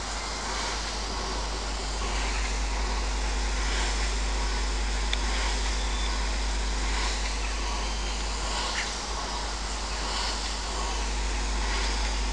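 Steady hiss from the standing steam locomotive 230.516, with a low wind rumble on the microphone underneath.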